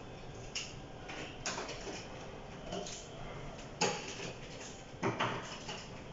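A handful of light knocks and clicks, a few seconds apart, as a smartphone is handled and set down on its cardboard box tray. The sharpest knock comes a little over halfway through and a quick double knock follows about a second later, over a steady low room noise.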